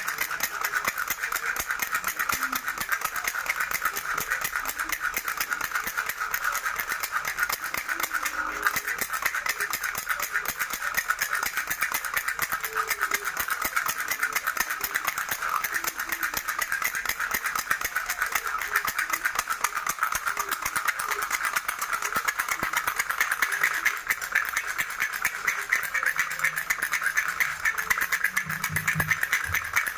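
Baby rattle shaken continuously: a steady, dense, fast rattling.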